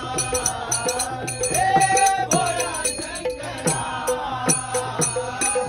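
Men singing a Marathi devotional bhajan to Shiva, accompanied by small brass hand cymbals (taal) struck in a steady quick beat and a two-headed hand drum (dholki) with bass strokes that slide down in pitch.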